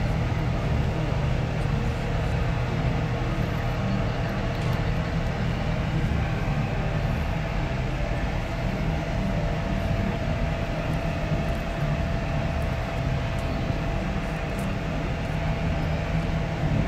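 Steady low drone of ship engines, with a fainter steady hum above it.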